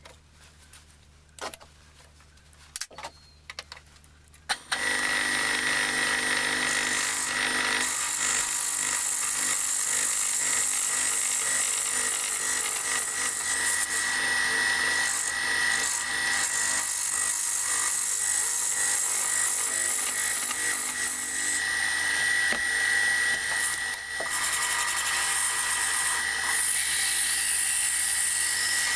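A few faint handling clicks, then about four seconds in a small metalworking lathe starts up. Its tool bit cuts a spinning wooden blank, giving a steady high whine over a dense hiss of wood shavings.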